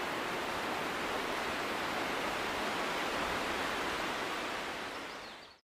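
Steady rushing outdoor noise with no distinct events, fading away about five seconds in and cutting off to silence.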